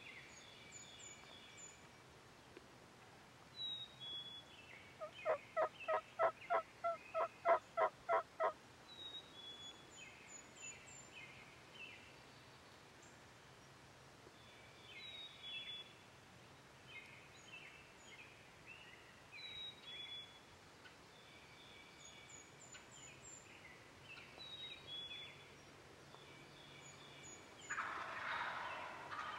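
A series of about eleven evenly spaced turkey yelps, about three a second, lasting some three seconds. A songbird sings the same short phrase again and again throughout.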